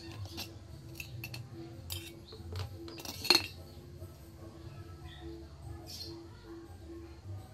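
Light metallic clicks and clinks from the wire spring clip and bulb of a Honda CB100 headlight reflector being handled as the halogen bulb is unclipped and removed, with one sharp click about three seconds in.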